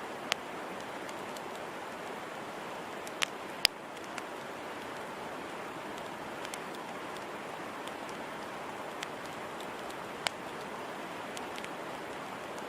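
Wood campfire burning with a steady crackling hiss and scattered sharp pops, the loudest about three and a half seconds in.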